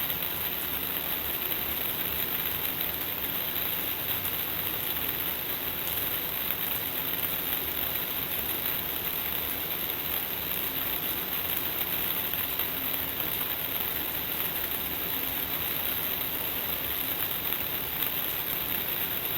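Shower running: a steady spray of water hissing down without a break.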